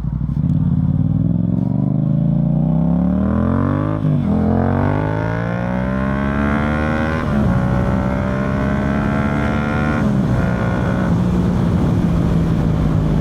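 Yamaha MT-07's 689 cc parallel-twin engine through an Akrapovic full exhaust, accelerating through the gears. The revs climb and fall back at three upshifts, about four, seven and ten seconds in, then hold steady.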